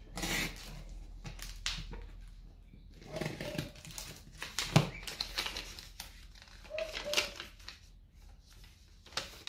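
Plastic packing-slip pouch and packing tape being peeled and torn off a cardboard box: crinkling and rustling in short bursts, with one sharp knock about halfway through.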